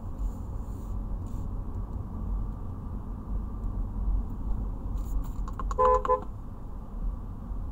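Steady road and engine rumble inside a moving car's cabin. About six seconds in, a car horn gives a short double beep.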